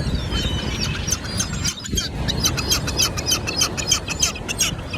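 Gulls calling in a quick run of short, high cries, over a steady low rush of wind and surf.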